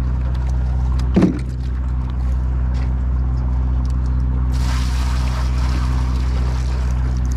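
Boat engine running at idle with a steady low hum. A short knock comes about a second in, and a rushing hiss joins in about halfway through.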